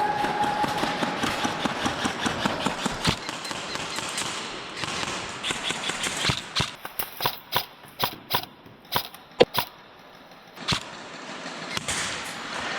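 Airsoft guns firing: a string of sharp, separate cracks about halfway through, one much louder than the rest, after a stretch of steady noise with quick faint ticks.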